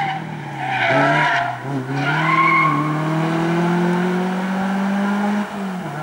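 Renault Clio's engine worked hard through a cone chicane, its note dipping and wavering as the tyres squeal briefly about a second in. It then pulls away with a steadily rising note and lifts off sharply near the end.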